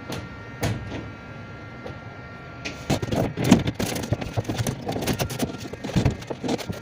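Irregular knocks, clicks and rattling from hand work on the van's interior panels, getting much busier about three seconds in.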